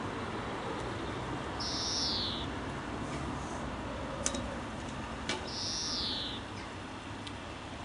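A bird calling twice, about four seconds apart, each call a short high note that slides slightly down, over steady outdoor background noise. Two sharp knocks come between the calls.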